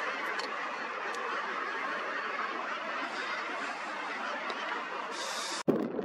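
Continuous massed calling of a seabird colony on sea cliffs, a dense cackling din. It cuts off suddenly near the end, and wind buffets the microphone.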